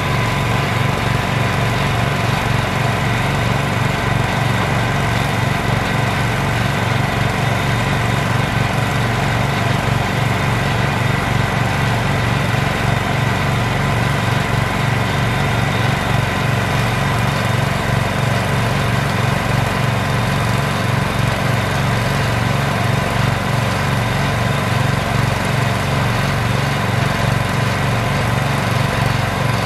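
Small engine of a homemade hydraulic water-well drilling rig running steadily under load, with an even low throb.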